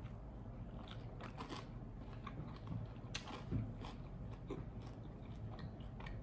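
A person biting into and chewing crusty toasted sourdough cheese toast, with crisp crunching crackles scattered throughout and one sharper crunch about three seconds in.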